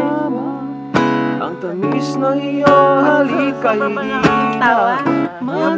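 Acoustic guitar being strummed and picked, with a few sharp strummed chords, and a voice singing along.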